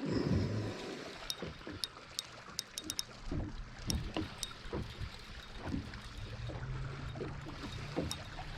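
Small waves lapping and slapping against the hull of a fishing boat, with a louder knock at the very start and a scatter of short, light clicks over the first few seconds.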